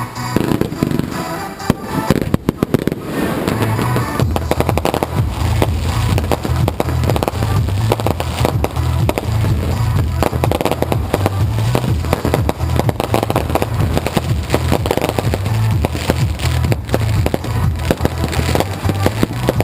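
Consumer fireworks going off with music playing. A few sharp bangs about two seconds in, then a dense, unbroken run of bangs and crackling.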